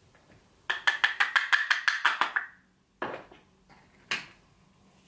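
Quick tapping on a YSL face powder container: about a dozen light, ringing taps over two seconds, then two single knocks a second apart.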